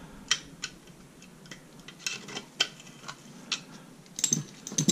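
Irregular light metal clicks and scrapes of a flathead screwdriver and magnet working a washer off the drive sprocket shaft of an 80cc two-stroke bicycle engine, with a quick run of clicks near the end.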